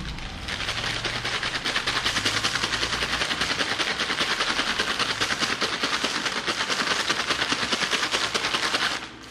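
A McDonald's Shake Shake fries paper bag shaken hard and fast, the fries and seasoning rattling inside the crinkling paper in a rapid, even rhythm. The shaking stops suddenly about nine seconds in.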